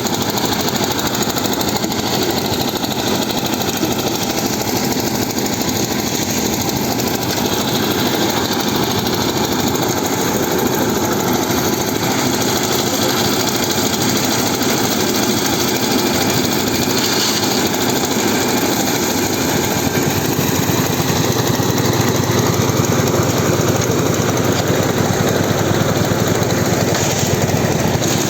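Concrete mixer machine with a ladder lift, its engine running steadily with a rapid rattling chug, a little louder about two-thirds of the way through.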